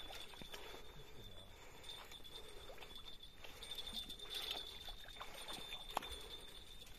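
Hooked carp splashing faintly at the surface close to the bank as it is played in on the line, over a steady high-pitched whine. A sharp click about six seconds in.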